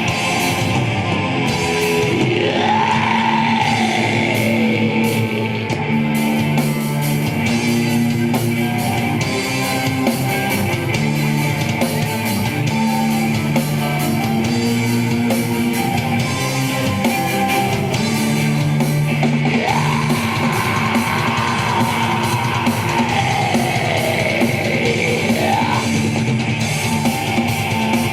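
Heavy rock band playing: distorted electric guitars over a drum kit, with a sweeping tone that glides up and back down in pitch near the start and again in the second half.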